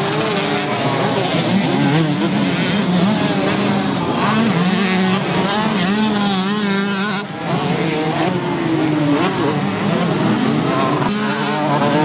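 Several two-stroke motocross bikes racing close by, their engines revving up and down and overlapping as the riders accelerate through corners and shift gears.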